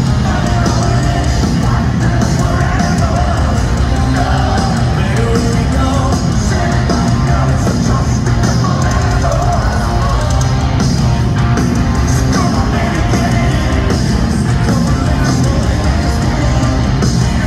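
Live hard rock band playing at full volume: distorted electric guitars, bass and drums, with a voice singing over them. Heard from the arena crowd, loud and washed out, as a phone picks it up.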